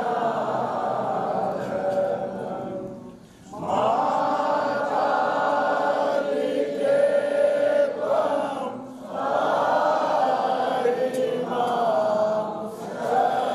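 Voices chanting a Hindu devotional mantra together in long sustained phrases, with short breaks between phrases.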